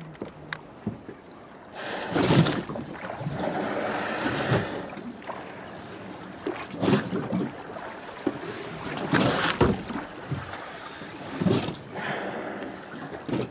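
Wind and water noise on open water, with several rushing bursts: a long one about two seconds in and shorter ones near the middle and end.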